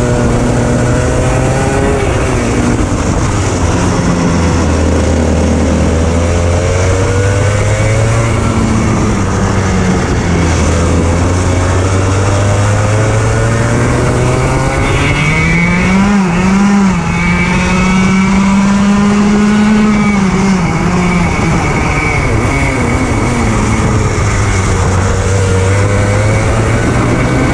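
100 cc two-stroke kart engine (about 18 hp) running continuously, its pitch dropping as it slows and climbing again as it revs back up several times.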